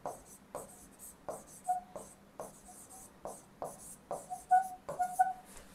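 Marker writing on a board: short strokes about twice a second, with brief squeaks of the tip on the surface in the second half.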